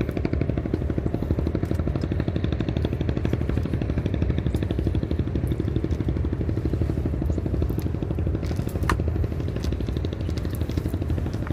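Small boat's motor running steadily with a fast, even pulsing beat.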